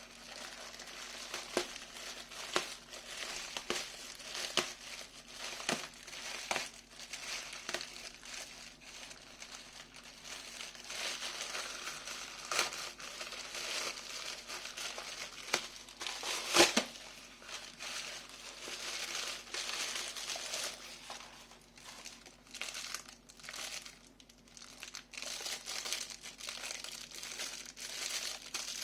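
Plastic packaging crinkling and rustling as it is handled and opened to get at a pair of silicone bike grips, with scattered sharp clicks and one louder snap about halfway through.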